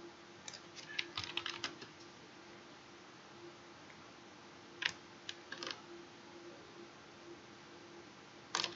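Scattered clicks of a computer keyboard and mouse, heard over a faint steady hum. A quick run of clicks comes about half a second to two seconds in, a few more around five seconds, and a pair near the end.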